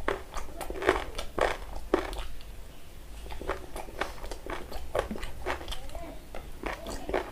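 A person eating Kolkata-style chicken chaap and biryani by hand, close to the microphone: chewing and lip smacks as a run of short, irregular clicks a few times a second.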